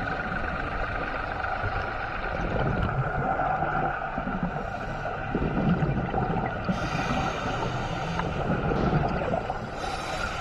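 Muffled underwater noise picked up by a diver's camera: a steady low rushing and rumbling with a faint hum running through it, turning hissier twice in the second half.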